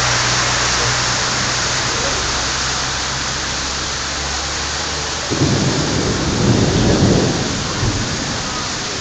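Heavy rain pouring with a steady hiss, and a rumble of thunder that starts suddenly about five seconds in and rolls on for about two seconds.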